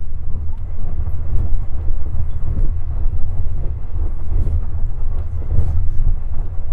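Passenger train running at speed, heard from inside a sleeper compartment: a loud, steady low rumble.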